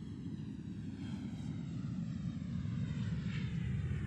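An aircraft's engine sound, a steady rumble that grows gradually louder as the aircraft approaches.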